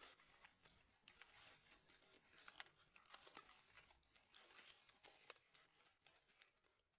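Near silence with faint, scattered light clicks and ticks over a low hiss.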